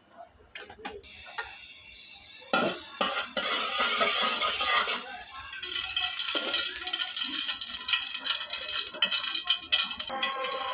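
Cooking utensils clinking and knocking against a pot or pan, two sharp knocks about two and a half seconds in, then a steady hiss of food cooking in the pan as it is stirred.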